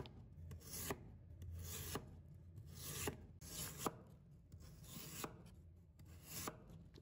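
A cleaver slicing a peeled potato into thin rounds on a wooden cutting board. It is faint, about one stroke a second, each a short scrape of the blade through the potato ending in a light tap on the board.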